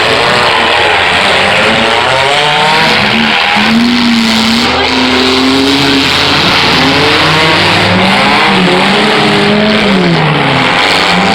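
Several demolition derby cars' engines revving hard at once, their pitch rising and falling as the drivers accelerate and back off, over a dense, loud wash of engine and exhaust noise.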